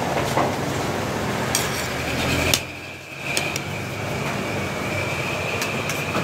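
Metal fork and spoon clicking against plates during eating, over a steady background noise. The background briefly drops out about halfway through, just after a sharp click.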